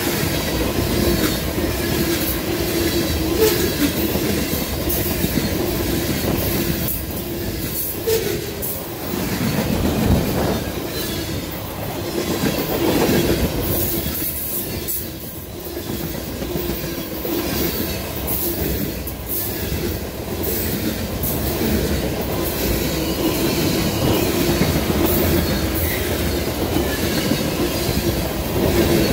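CSX freight train of tank cars and covered hoppers rolling past at speed: a steady rumble and clatter of steel wheels on the rails, with irregular clicks and a sustained wheel squeal throughout.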